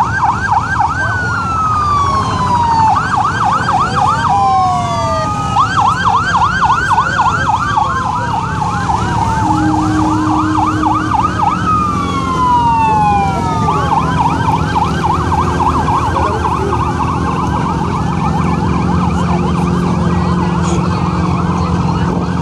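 Electronic emergency sirens sounding over one another. They switch between a fast yelp of about five rising sweeps a second and slower falling wails, over a steady low engine hum.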